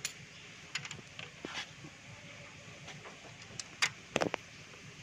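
Steel hand tools clinking against the rocker arms and adjusting screws of a Mitsubishi 4G13 engine's exposed valve train during a valve clearance adjustment. Several sharp metallic clicks, the loudest a quick cluster near the end.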